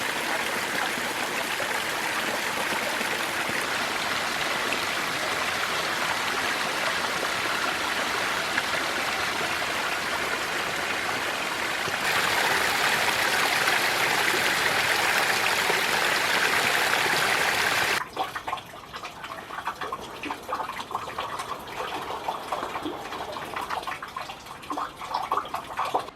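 Stream water running: a steady rush that grows a little louder about twelve seconds in, then changes suddenly to a quieter, uneven gurgling trickle for the last several seconds.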